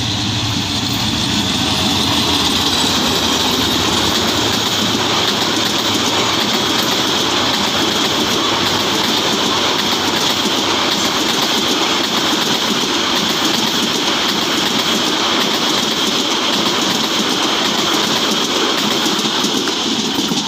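A diesel-electric passenger train passing close by at speed. The locomotive's engine goes by in the first couple of seconds, then a long, steady rush and clatter of coach wheels on the rails as the carriages stream past.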